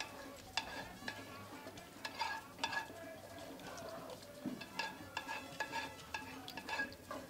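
Wooden spatula stirring rice in tomato stock in a metal cooking pot, scraping and knocking against the pot's sides and bottom in irregular strokes, with brief metallic ringing after the knocks.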